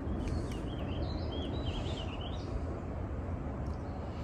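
A small bird chirping a quick run of short, wavering notes over a steady outdoor background rumble.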